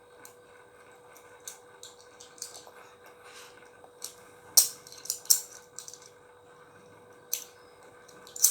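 Scattered light clicks and taps, with a few sharper ones in the middle and near the end, over a faint steady hum.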